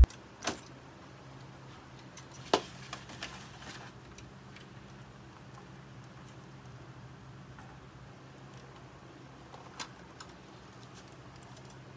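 A few faint metal clicks and knocks as a controller module is unlatched and slid out of a QNAP ES2486dc rack NAS chassis. The loudest knock comes about two and a half seconds in, with smaller ones just after and another near the end.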